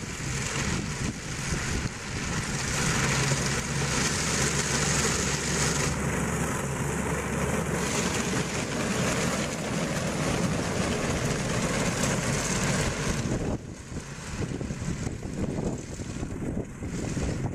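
A heavy vehicle's engine running with a steady low hum under a loud rushing noise. The sound changes abruptly near the end, dropping in level.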